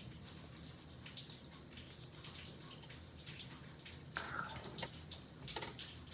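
Plastic ladle stirring cooked mung beans in syrupy liquid in a pot: faint sloshing and dripping with small clicks, and a couple of louder splashes about four and five and a half seconds in.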